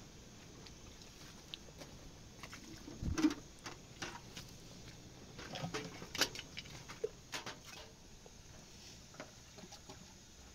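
Irregular light clicks and knocks, with one heavier thump about three seconds in and a cluster of sharper clicks around six seconds.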